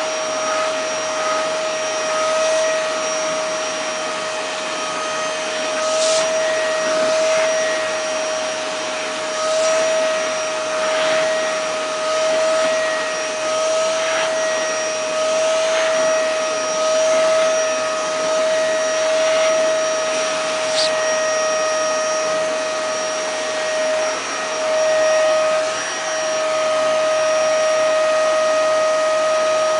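Vacuum cleaner running with a steady motor whine over a rush of air, its loudness rising and falling every second or two as it is used to vacuum the kittens' fur.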